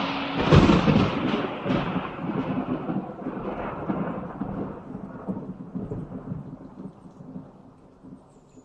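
A thunderclap: a sharp crack followed by a long rolling rumble with a few further cracks in the first couple of seconds, fading away slowly over about seven seconds.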